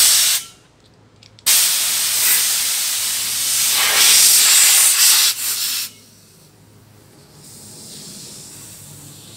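Compressed air hissing from an air hose and homemade adapter as it is put to an AC condenser's inlet: a short blast right at the start, then about four seconds of loud hiss that cuts off, followed by a softer hiss.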